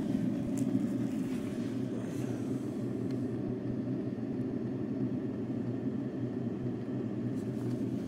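Gasmate portable diesel heater running steadily, fully warmed up at its full heat output: a constant low hum.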